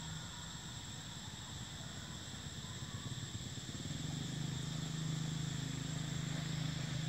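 Outdoor forest ambience: a steady high insect drone, joined about four seconds in by a low, steady motor hum that grows louder.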